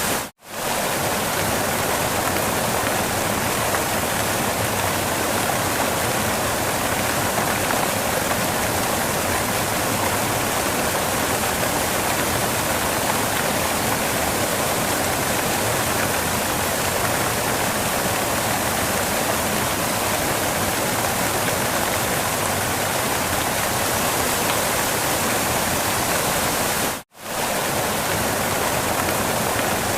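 Steady rushing of a waterfall, an even hiss of falling water. It cuts out completely for a split second twice: just after the start and near the end.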